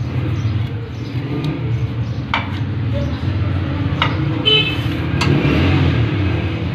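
Steady low engine rumble, the loudest sound, not from the generator, which stands still. Over it come a few sharp metal clicks from a screwdriver turning a battery terminal bolt, and a brief high tone about four and a half seconds in.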